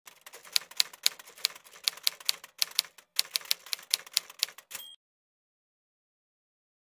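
Typewriter sound effect: a quick run of keystroke clicks, about four a second, with a short break about three seconds in. The run ends in a brief ring near five seconds.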